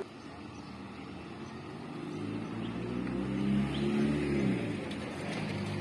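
A motor vehicle's engine passing by on the street: its sound swells from about two seconds in, peaks near four seconds and fades, its pitch dropping slightly as it goes by, over a steady street background.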